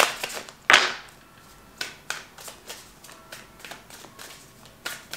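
Tarot deck being shuffled by hand: two loud riffling rushes of cards in the first second, then soft card clicks and slides as the cards are moved from hand to hand.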